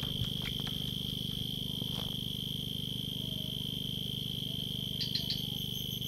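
Insects in a forest setting keep up a steady high-pitched drone over a low steady hum. A quick cluster of three or four high chirps comes about five seconds in.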